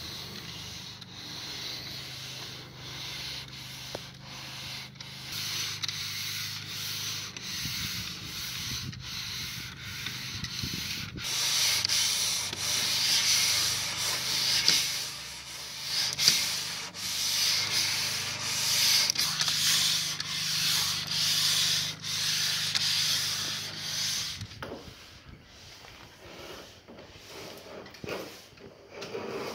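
Small electric sander running against a wooden spar: a steady motor hum under the hiss of sandpaper on wood, louder from about eleven seconds in. Near the end the machine stops and gives way to quieter rubbing and scraping of hand work on the hull.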